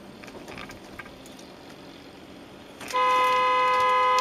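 Low traffic and road noise, then about three seconds in a car horn sounds in one loud, steady, unbroken blast.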